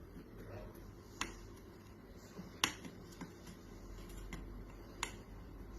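A handful of faint, sharp clicks at irregular intervals: a soldering iron tip tapping against the LEDs on an LED lamp's board, testing each LED with heat. A low steady hum lies underneath.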